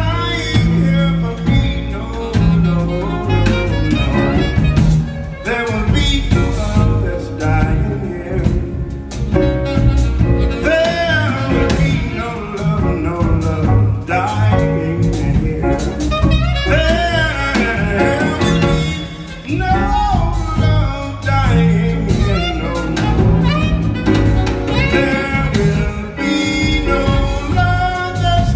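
Male jazz baritone singing long, sliding held notes over a live jazz band.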